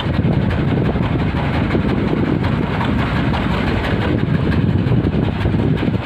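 Fishing boat's engine running steadily while the boat is under way.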